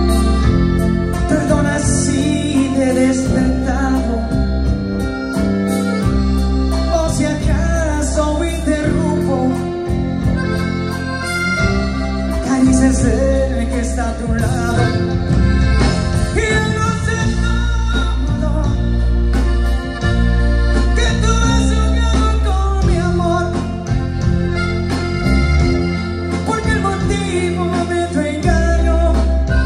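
Live grupero band playing a romantic song through a PA system: electric guitars, keyboard with an organ-like sound, bass and drums under a lead singer.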